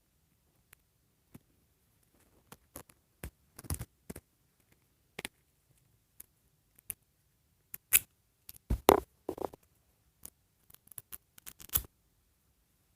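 Handling of a small plastic doll and its hair pieces: scattered clicks, taps and rubbing as the hair piece is worked off, loudest about eight to nine seconds in.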